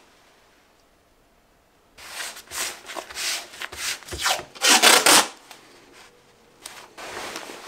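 Masking tape being rubbed down onto a jacket's fabric and pulled off the roll: a run of short scraping strokes starting about two seconds in, the loudest and longest just before five seconds, with softer ones near the end.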